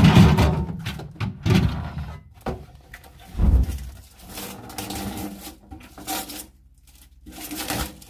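Irregular knocks, thumps and rubbing from fridge parts being handled during disassembly, with a heavy thump about three and a half seconds in.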